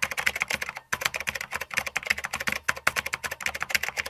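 Computer keyboard typing sound effect: rapid keystroke clicks, about ten a second, with a short break about a second in.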